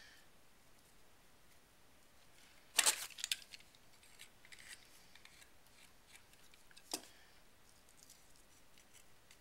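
A few quick, crisp scissor snips close together about three seconds in, then a single sharp click about seven seconds in.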